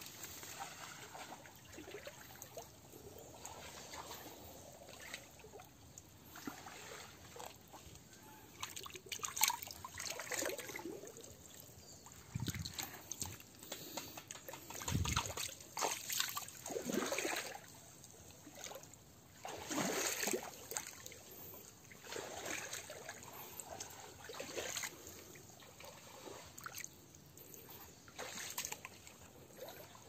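Shallow creek water sloshing and splashing under wading steps, in irregular bursts that come thicker from about nine seconds in, with a couple of brief low thumps.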